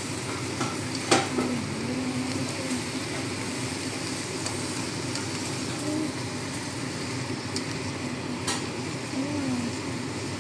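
Spinach and vegetables sizzling steadily in a pan as they are stirred with a wooden spatula, with a sharp knock of utensil against pan about a second in and another later on.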